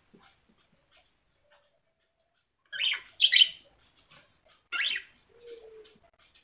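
Pet bird giving three short, loud calls in quick succession a few seconds in.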